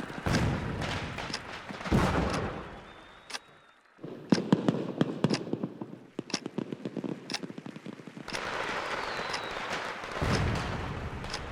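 Fireworks sound effect: a couple of sharp bangs, then a rapid string of crackling pops, then a steady noisy din.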